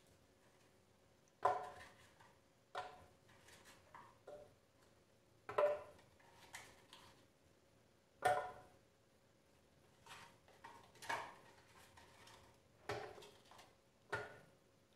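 Frozen banana pieces dropped one at a time into a plastic Ninja blender pitcher: about a dozen quiet, separate knocks, roughly a second apart.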